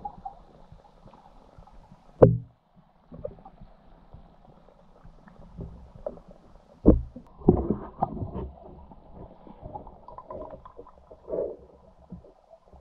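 Muffled underwater sound picked up by a submerged camera: a low rumble with several dull knocks, the loudest about two seconds in and again around seven seconds in.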